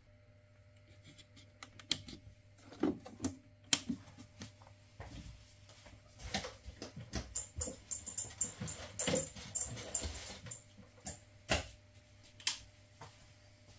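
Handling noises while a red darkroom safelight is set up: irregular clicks and knocks, with a sharp click near four seconds in and another near eleven and a half seconds, plus a burst of rustling in the middle, over a low steady hum.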